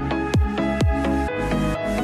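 Electronic dance background music with a steady kick-drum beat, about two beats a second, over held synth chords; the kick drops out about two-thirds of the way in.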